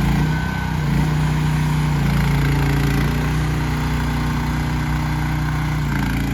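AGT Industrial QH12 mini excavator's small engine running steadily, its pitch dipping briefly and recovering several times.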